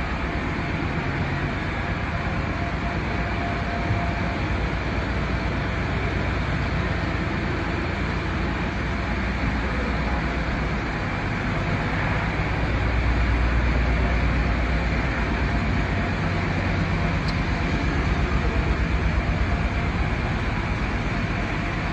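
Blanchard 72HD-120 rotary surface grinder running under power: a steady mechanical rumble and hum that grows slightly louder partway through.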